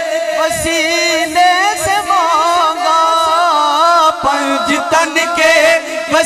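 A man singing an Urdu naat into a microphone, drawing out a long ornamented phrase whose pitch bends and curls, over a steady held drone.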